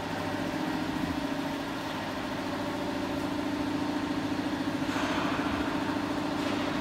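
A steady mechanical hum, like a motor running without a break, with a faint hiss over it that grows a little about five seconds in.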